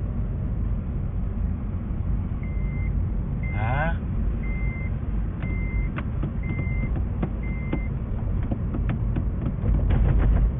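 A car's warning beeper, sounding six short high beeps about one a second over the steady low rumble of the running car heard from inside the cabin. A scatter of light clicks follows in the second half.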